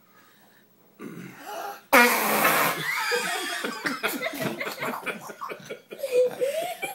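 A young child makes a loud fake fart noise about two seconds in, followed by several seconds of laughter.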